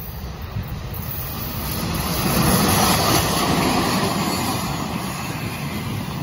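EP1M AC electric locomotive hauling a passenger train approaches and runs past close by. The rolling noise grows, is loudest about halfway through as the locomotive goes by, then eases a little into the steady rumble of the coaches passing.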